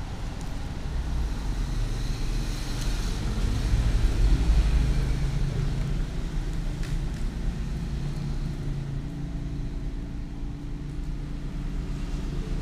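Low steady rumble, like road traffic going by, that swells about four seconds in and then eases off.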